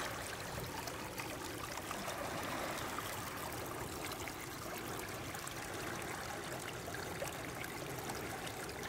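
Shallow creek water running and trickling over pebbles and stones, a steady babble with small scattered splashes.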